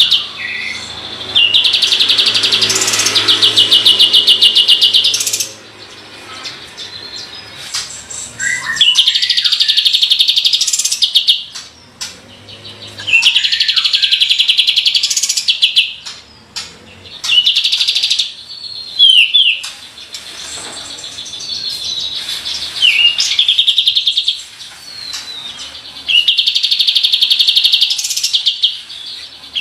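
Kapas tembak songbird singing its rolled 'tembakan' phrases: loud, very fast rattling trills, each lasting one to four seconds, repeated about six times with short pauses between.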